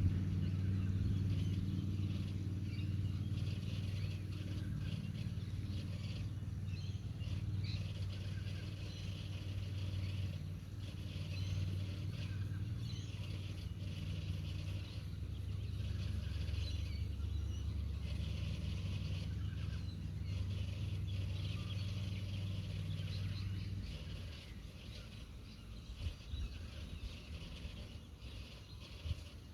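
Low, steady engine drone from an unseen vehicle or machine, dying away about 24 seconds in, with birds chirping faintly over it.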